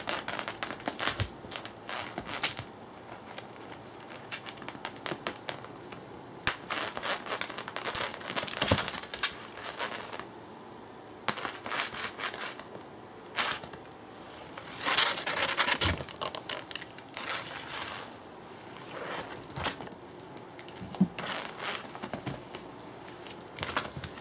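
Cats chasing and pouncing on a feathery toy dragged on a string over tatami mats: irregular scuffs, paw taps and rustles, with a light metallic jingle now and then.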